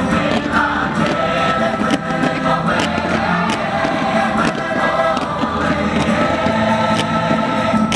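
Fireworks show soundtrack: loud music with a choir singing, with many short sharp cracks scattered through it.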